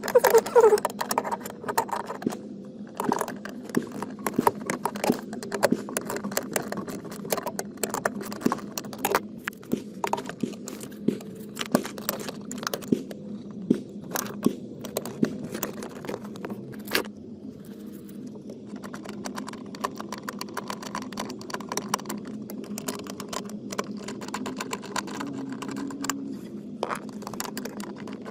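Metal hand tools clinking and scraping while bolts are worked loose, in irregular clicks and knocks throughout, over a faint steady hum.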